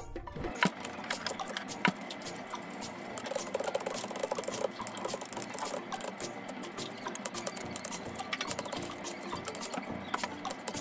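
Chef's knife cutting green onions into thin strips on a plastic cutting board: a quick, dense run of small clicks and taps of the blade through the stalks and on the board, with two louder knocks early on.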